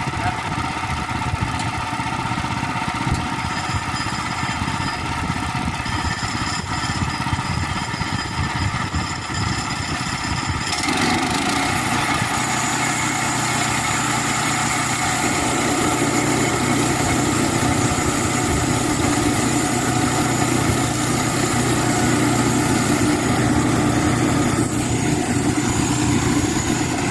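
Engine of a Woodland Mills HM122 portable sawmill running steadily; about eleven seconds in its note changes and gets a little louder, and it holds there.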